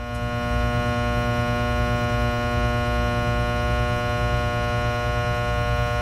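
A steady low electrical hum, a buzz made of many overtones at one unchanging pitch.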